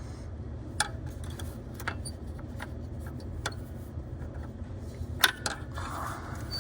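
Scattered sharp metallic clicks and taps as a block heater element is worked by hand toward its hole in the engine block, about six of them, the loudest a little past five seconds in. A steady low hum runs underneath.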